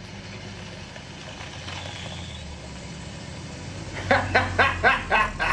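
Steady low rumble of an idling vehicle engine, then a voice starting about four seconds in.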